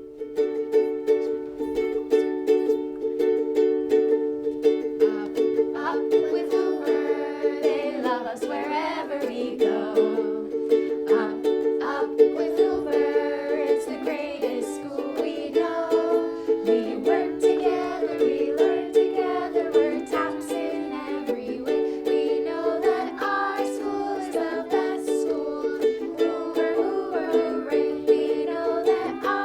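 A song performed with a strummed string instrument, steady chords from the start, and singing that comes in about six seconds in.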